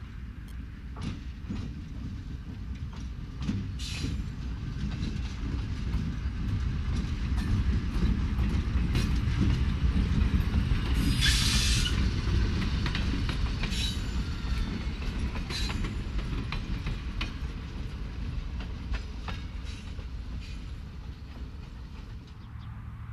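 A GE B39-8 diesel locomotive hauling a passenger coach passes close by. The engine's low rumble builds to its loudest about halfway through and then fades as it moves away, with steady clicking of wheels over rail joints and a brief high-pitched sound near the middle.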